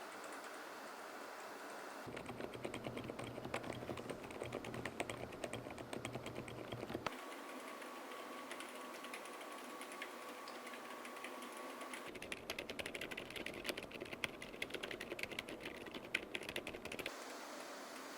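Typing on a mechanical keyboard fitted with fully lubed Outemu Lime silent non-clicky V3 switches: soft, muted, rapid keystrokes. There are two bursts of typing of about five seconds each, with a pause of about five seconds between them.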